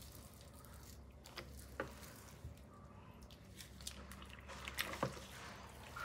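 Faint wet squishing and a few light clicks as a wig is dipped into a plastic bowl of dye water and worked with a tint brush.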